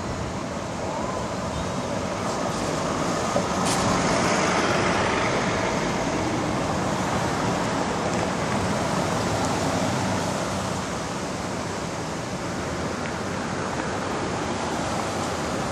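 City street traffic with police vans driving past, engines and tyres swelling louder about four seconds in, with a sharp click just before.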